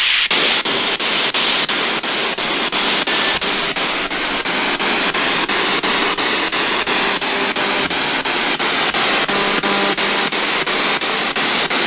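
Spirit box (ghost box) radio scanner sweeping through stations: loud static hiss chopped about four times a second as it jumps from frequency to frequency.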